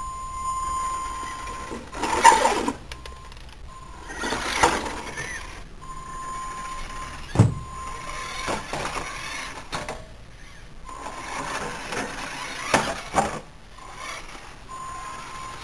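Electric RC car on a Tamiya TL-01 chassis driven in several short spurts on concrete, its motor and gears rising in each run. A steady high whine sounds between the runs, and there is a sharp knock about seven seconds in.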